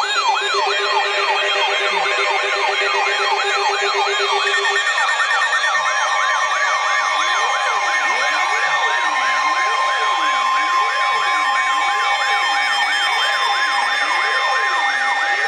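Several electronic sirens wailing at once in overlapping layers: fast up-and-down sweeps about three a second, joined about seven seconds in by a slower, lower wail, over steady tones.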